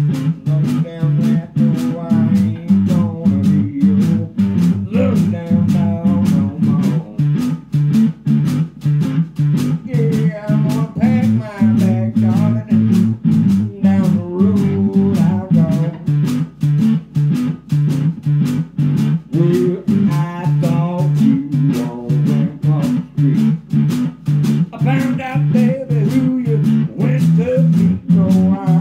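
Small blues band playing live: a drum kit keeps a steady, fast beat under guitar, with a wavering lead melody above them.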